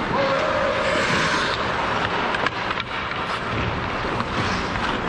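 Ice hockey play close to the goal: skate blades scraping and carving the ice, with a few sharp clacks of sticks or puck.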